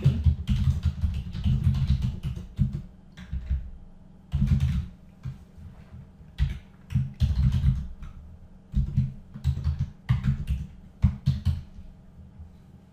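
Computer keyboard being typed on: clusters of key clicks with a dull thud, in several short bursts separated by brief pauses.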